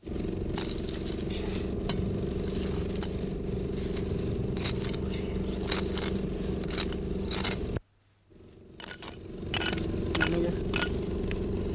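Hands weeding a garden bed, pulling plants and scraping at the soil: irregular scrapes, crackles and rustles over a steady low hum. The sound drops out briefly about eight seconds in, then returns.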